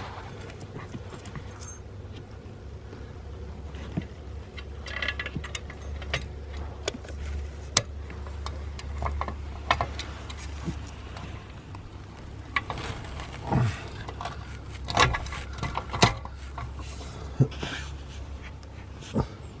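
Metal hand tools clinking and knocking against exhaust fittings while bolting up a car's exhaust section: scattered sharp clicks and taps, with a few louder metallic knocks in the second half, over a low steady hum.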